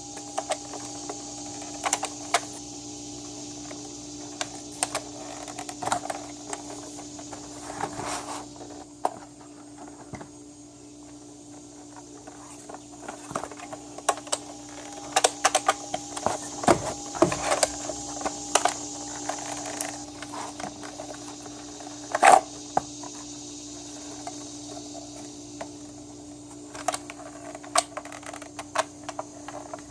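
Hard plastic Nerf blaster parts being handled and snapped together: scattered clicks, rattles and rustles, with a sharp knock about two-thirds of the way through, over a steady hum.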